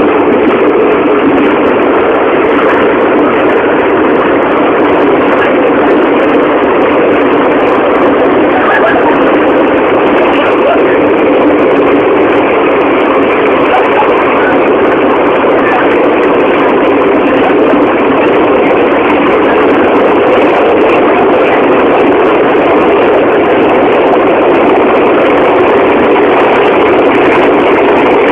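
Subway train running, a loud steady noise that holds level and does not change.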